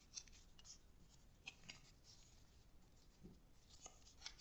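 Near silence, with faint scattered clicks and scratches from hands working at a plastic blister pack of foam darts.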